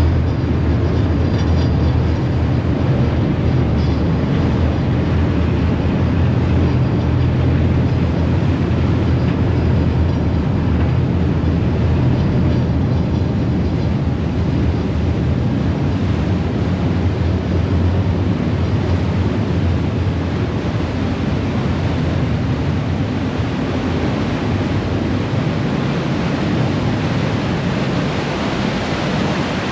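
A harbour ferry's diesel engine running steadily under way, a low drone over the rushing churn of the propeller wash at the stern. The engine drone eases near the end, leaving mostly the sound of the churning water.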